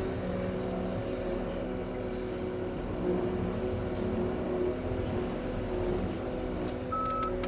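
Diesel engine of a John Deere 335P skid steer running steadily. A reverse backup alarm starts beeping near the end.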